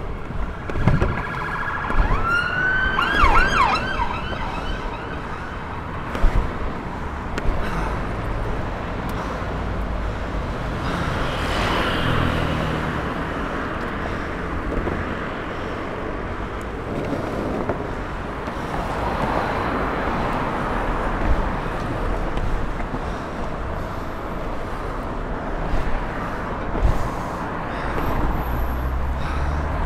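Longboard wheels rolling over the pavement of a cycle lane, with road traffic alongside. A siren wails briefly, rising and falling, about two to four seconds in.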